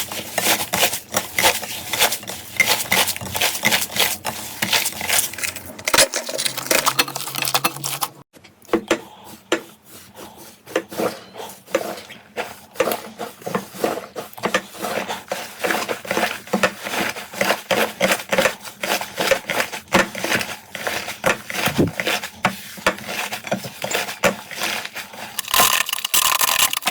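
Close-miked crackling and clicking from a soft play material being pressed and worked by hand: a dense run of small pops and crackles. The sound drops away briefly about eight seconds in, then resumes.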